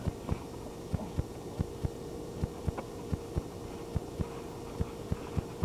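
Dull, irregular thuds of feet and bodies landing on a trampoline mat, several a second.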